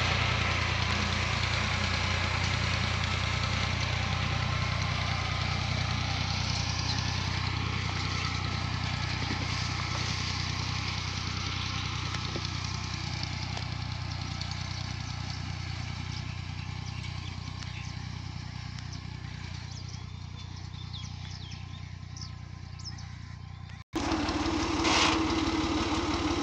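Tractor engine running steadily as it pulls a tractor-mounted boom sprayer through the crop, with a broad hiss from the spraying, the whole sound fading slowly as the tractor moves away. Near the end it cuts abruptly to the engine heard close up and louder.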